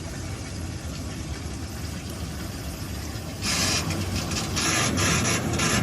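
Kenmore front-load washer running a quick cycle: a steady low machine hum, joined about three and a half seconds in by a loud, choppy hiss.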